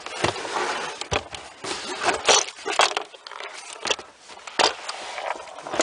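Hands working at a VW Golf Mk4's plastic inner door panel and its clips: a run of scrapes and sharp clicks.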